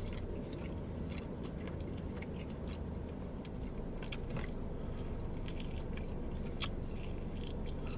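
Someone chewing and biting into sauced chicken wings, with small wet mouth clicks and smacks scattered throughout, over a low steady hum. One sharper click comes about two-thirds of the way through.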